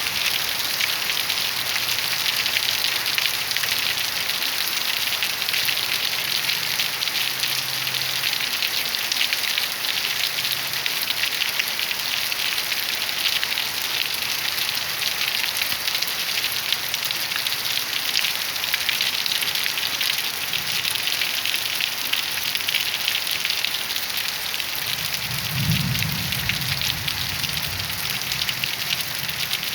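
Heavy rain falling steadily on surfaces, with a low rumble of distant thunder lasting a few seconds near the end.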